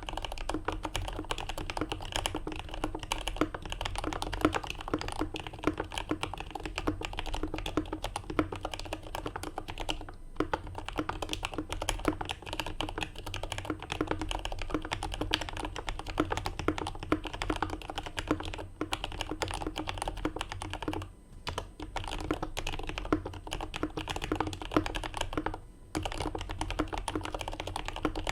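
CA66 mechanical keyboard with lubed Turquoise Tealios linear switches on an aluminum plate, under GMK keycaps, typed on quickly and without letup: a dense stream of keystroke clacks. There are short pauses about 10, 21 and 26 seconds in.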